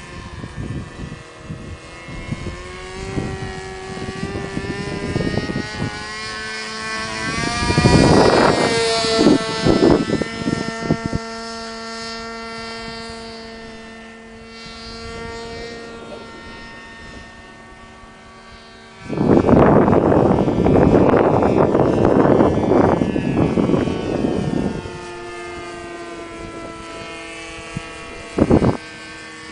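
Engines of two radio-controlled model airplanes flying overhead, a steady drone whose pitch drifts up and down as the planes turn and pass. Loud gusts of wind on the microphone cut in about a quarter of the way through and again for several seconds past the middle.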